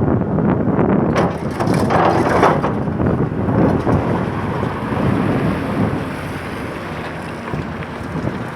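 Excavator at work: irregular crunching and scraping of broken material over its running engine, easing into a steadier, quieter engine rumble after about five seconds.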